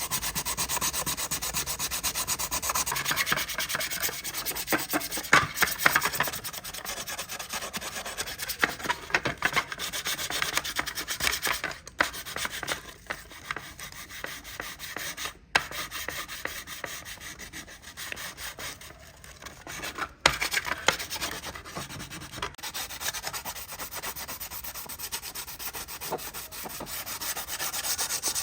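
Continuous sanding of a surface, a steady rasping scrape broken by a few brief pauses.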